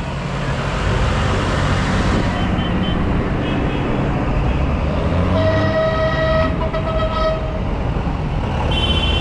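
Tractor engines running with a steady low rumble, and a horn sounding for about two seconds midway through.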